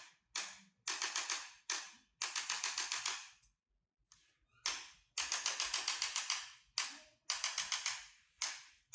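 Chiropractic adjusting instrument working on the lower spine: rapid runs of sharp clicks, about eight a second, in bursts of a few to a dozen with short pauses between them.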